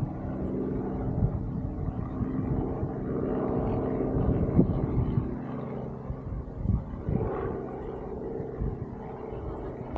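A steady engine hum, with irregular low rumbling from wind on the microphone.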